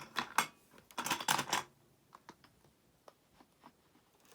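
Hard plastic toy play-set pieces clicking and clattering as they are handled: two sharp clicks, a short burst of clatter about a second in, then a few faint ticks.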